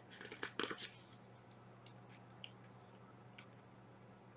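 Faint handling sounds from a paper pattern book: a few rustles and soft clicks in the first second, then only scattered faint ticks over a low steady hum.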